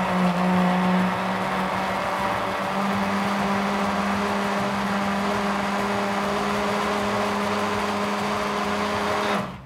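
Electric mini chopper running steadily, its motor whirring as it grinds green olives with olive oil into a paste; the hum steps up slightly in pitch about three seconds in and cuts off just before the end.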